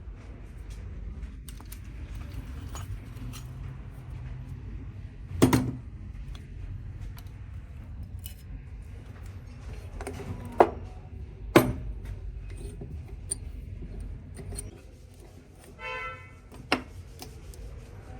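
Metal parts and tools clinking and knocking during hand work on a car starter motor, with a few sharp knocks, two of them about a second apart in the middle, and a short buzz near the end.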